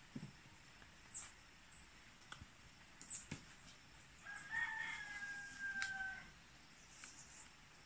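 A rooster crowing once midway through, one long held call of about two seconds that sags slightly in pitch at the end. Scattered light crackles of footsteps on leaf litter come before and after it.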